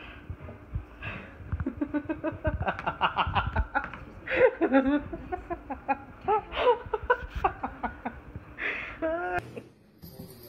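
People laughing in quick repeated bursts and chuckles, breaking off suddenly near the end.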